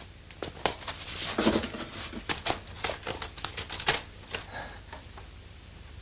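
Irregular clicks, knocks and rustling from someone rummaging through a shelf and handling objects, with a short burst of rustling about a second and a half in.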